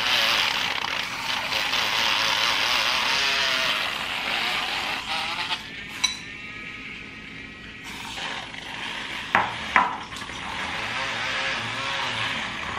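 Handheld electric milk frother whirring through matcha concentrate in a glass bowl, frothing and spattering, for about the first four seconds before it dies away. A sharp click follows about six seconds in, then two quick knocks about three seconds later.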